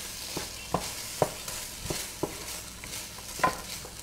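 Wooden spoon stirring chicken in a thick sauce in a pan, knocking against the pan several times at an uneven pace, over a steady sizzle of frying.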